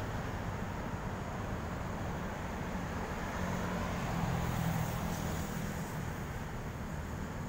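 Steady low outdoor rumble, like distant traffic or wind on the microphone, with a faint engine-like hum rising out of it for a second or two about halfway through.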